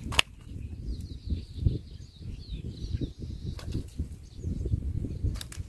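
Wind buffeting the microphone as a low, gusting rumble, with a few sharp clicks, one just after the start and two near the end.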